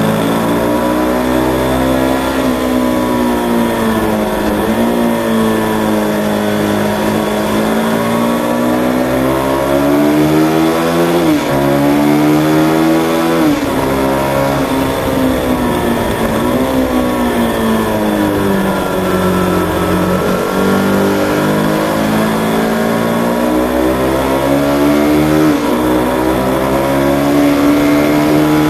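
Aprilia RSV 1000 R's 60-degree V-twin engine at track speed, heard onboard: its pitch climbs under acceleration, falls as the throttle is eased, and drops sharply at a few gear changes, with a steady rush of wind noise over it.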